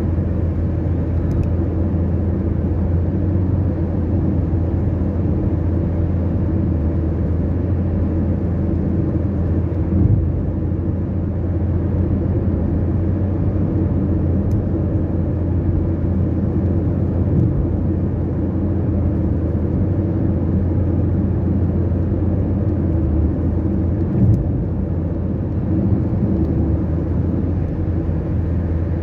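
Steady low rumble of a car driving at highway speed, engine and tyre noise heard from inside the cabin, with two brief bumps along the way.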